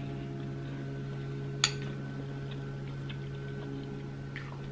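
Close-miked chewing of grilled sirloin steak: soft, wet mouth clicks at uneven intervals, with one sharper click about a second and a half in. A steady low hum runs underneath.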